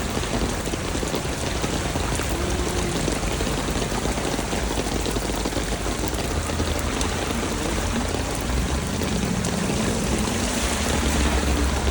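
Heavy rain falling steadily, with floodwater running and pouring along the road. A low rumble builds in the last few seconds.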